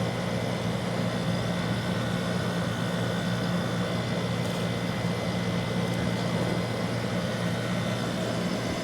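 1991 Friedrich Quietmaster 12,000 BTU room air conditioner running on low cool, blowing cold air: a steady rush of air from the fan over a low, even hum.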